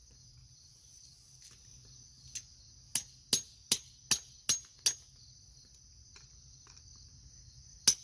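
Hammer striking a geode: a run of six sharp, ringing blows in quick succession, about two to three a second, starting about three seconds in, with one more blow near the end.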